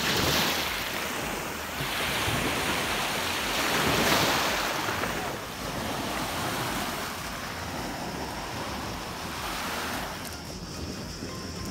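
Sea waves washing onto the shore, swelling twice in the first few seconds and then settling, with wind buffeting the microphone.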